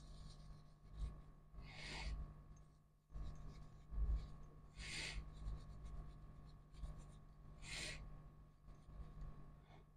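Cloth wiping down a work surface: three short, scratchy rubbing strokes about three seconds apart, with faint thuds, over a steady low electrical hum.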